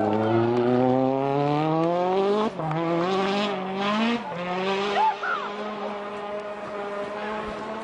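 Citroën DS3 WRC rally car's turbocharged 1.6-litre four-cylinder engine revving hard. The pitch climbs, drops sharply about two and a half seconds in, climbs again, then settles to a steadier lower note as the car goes off the road into deep snow.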